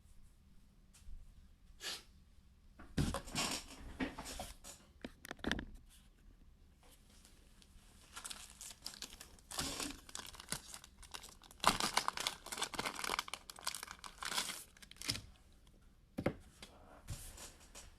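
Trading-card box packaging being torn open and crinkled by hand, in irregular bursts of tearing and rustling.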